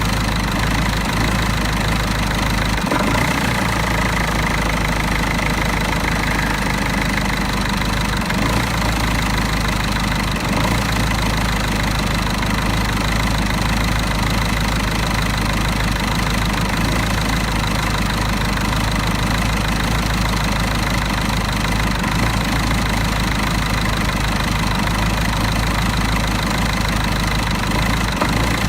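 Mercedes OM646 four-cylinder common-rail diesel engine idling roughly, with a steady, uneven diesel knock. The rough idle comes from a faulty EGR valve and lasts only while the engine is cold, until the coolant reaches about 60 °C.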